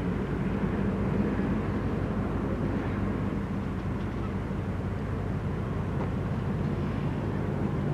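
Large ship's engines running: a steady low drone with a held hum, unchanging throughout.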